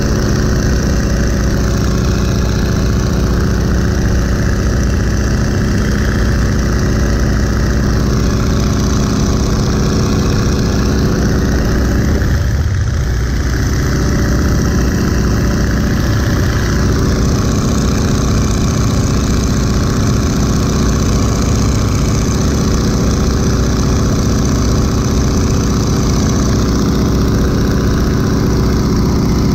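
1941 Boeing Stearman biplane's radial engine and propeller running steadily in cruise flight, heard from the open cockpit with heavy wind rush over it; the level dips slightly for a moment about halfway.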